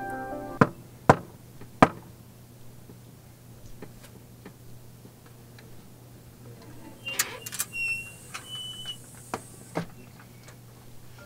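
Three sharp knocks with a fist on a wooden front door, about a second in. Later come a few short high chirps and two fainter clicks.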